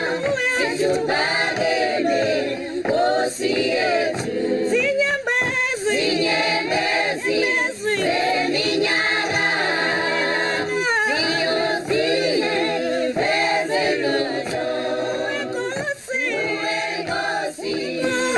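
A choir singing in harmony, in phrases of a second or two with short breaks between them.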